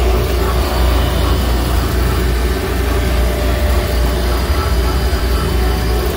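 Alternator test rig running, spinning a 300 A extreme-output alternator: a loud, steady low drone with no change in speed.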